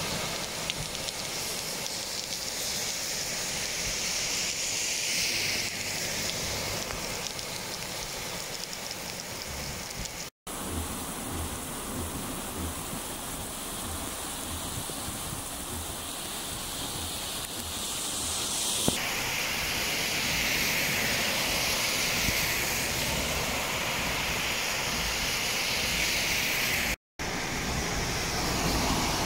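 Heavy rain pouring down in a steady hiss, broken twice by a brief silence.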